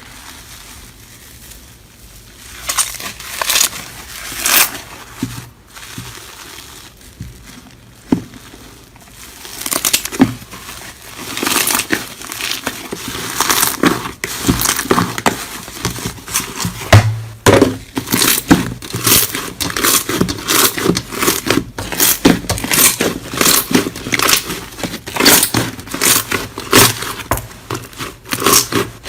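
Slime being squeezed and pressed by hand, giving crackling, crunching pops: a few scattered crackles at first, then dense, rapid crackling from about ten seconds in.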